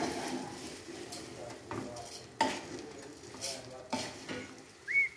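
A wooden spoon stirring raw rice and cooked beef in a metal pot: the grains rustle and the spoon scrapes the pot in a run of short strokes. A brief rising squeak comes near the end.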